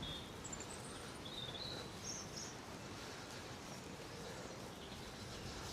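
Outdoor ambience: a steady, faint background hiss with a few short, high bird chirps in the first two or three seconds.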